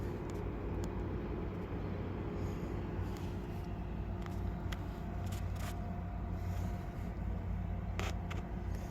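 Steady low hum of an idling engine, with a few light clicks.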